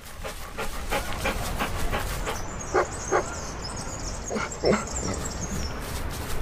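A dog panting in quick rhythmic breaths, with four short yips in the middle.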